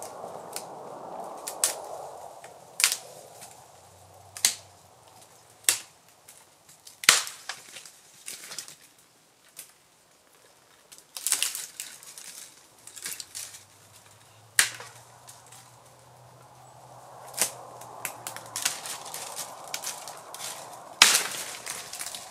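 A series of sharp knocks or cracks, about a dozen at irregular gaps of one to three seconds, the loudest a little past seven seconds in and near the end.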